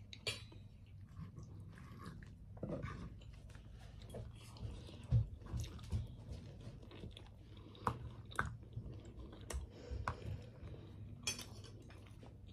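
Close-miked chewing and mouth sounds of a person eating bread and egg, with irregular short clicks and smacks over a faint low hum.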